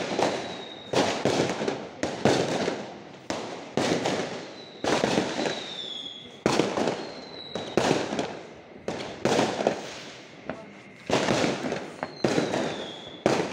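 Fireworks going off one after another, a sharp bang about every second, each followed by a trailing crackle and rumble. A few short high whistles dip in pitch among the bangs.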